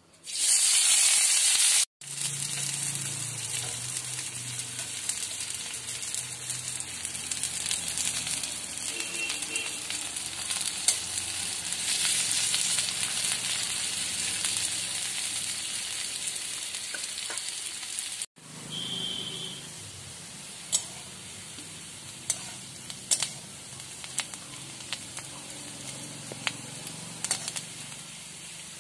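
Sliced onions hitting hot oil in an aluminium kadai: a loud burst of sizzling, then a steady frying sizzle as they are stirred with a metal spatula. After an abrupt break the sizzle is quieter, with sharp taps and scrapes of the spatula on the pan.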